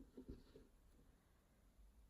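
Near silence: room tone, with a few faint, brief sounds in the first half second.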